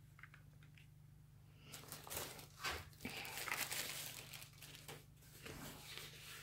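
Plastic packaging crinkling and rustling as it is handled, with a few sharp crackles. It starts about two seconds in and fades near the end.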